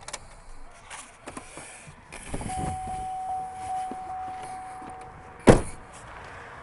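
Pickup truck door opening, with a steady warning chime sounding for a couple of seconds, then the door slammed shut with a loud bang about five and a half seconds in.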